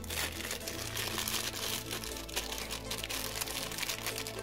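Thin clear plastic bag of spare plastic gears crinkling as it is handled and turned over in the hands.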